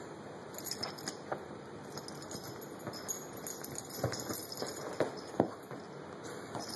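A cat's paws and body thumping and scuffing irregularly on a fabric sofa cushion as it spins after its tail, with the loudest thump about five and a half seconds in.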